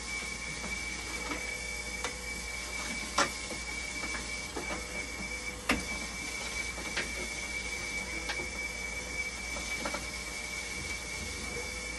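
Open dialysis machine running: a steady thin high whine over a low hum, with a handful of sharp clicks and taps scattered through.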